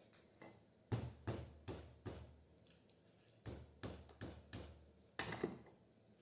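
Hand hammer striking a ballast coil part clamped in a steel bench vise, knocking it apart to free the copper winding. A light tap, then about a dozen sharp blows in three quick groups, each with a short metallic ring.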